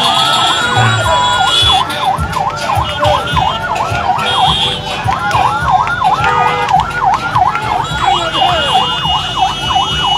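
A siren in a fast yelp, sweeping down and up about three times a second, with a brief break about five seconds in, over the noise of a large crowd.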